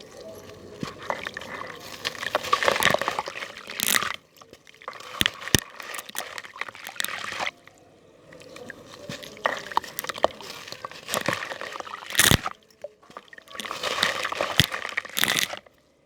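Crunchy balls crumbling in water: wet crackling and sloshing in several spells a few seconds long, with short pauses between them and a few sharp snaps.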